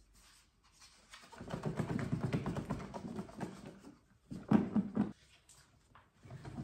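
Cucumber salad being shaken in a closed clip-lock food container: the sliced cucumber, onion, salmon and creamy dressing slosh and knock against the lid and walls in quick rhythmic bursts. A long stretch of shaking begins about a second in, a short harder burst comes past the middle, and another starts near the end.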